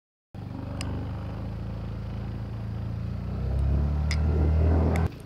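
Motor scooter engine running steadily as it is ridden, with a low hum that grows louder over the last second and a half before cutting off suddenly near the end.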